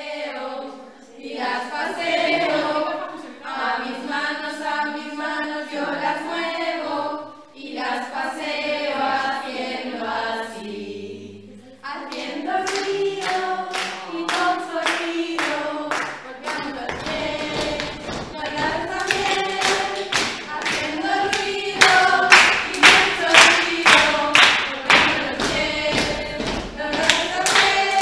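A group of women singing a Spanish children's action song together, without instruments. About twelve seconds in, rhythmic hand clapping joins the singing, and a few seconds later stamping feet add low thuds, with the clapping and stamping loudest near the end.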